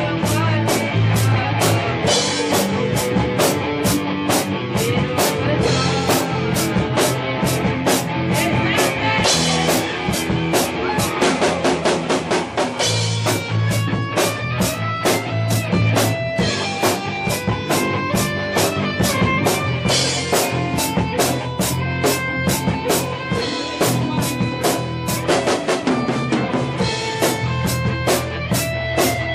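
Live rock band jamming: a drum kit keeps a steady beat of cymbal and drum strikes under electric bass and electric guitar.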